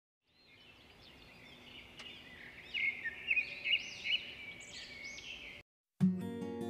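Birds chirping and whistling in a busy chorus, which stops abruptly; about a second later, acoustic guitar music begins.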